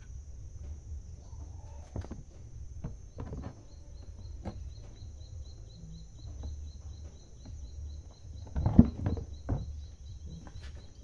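Knocks and clunks of a Kubota HST hydraulic pump's metal housing being handled and turned over on top of a metal drum, the loudest clunks coming about nine seconds in, over a steady low rumble.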